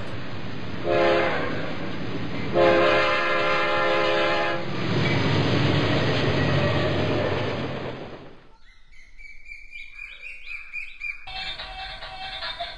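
Passenger train passing, its horn sounding in two long blasts, about a second in and about two and a half seconds in, over the rumble of the coaches. The rumble fades out about eight and a half seconds in.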